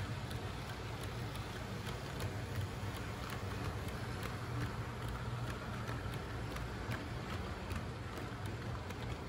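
HO scale Santa Fe Super Chief model train running past on the layout track: a steady low hum with a string of light clicks from the wheels on the rails.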